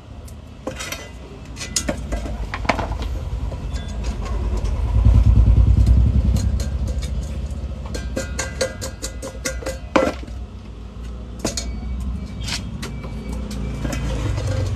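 Low engine rumble of a passing motor vehicle, swelling to its loudest about five to six seconds in, over light metal clinks and knocks from small metal parts and a frying pan being handled on a workbench. One sharper knock comes about ten seconds in.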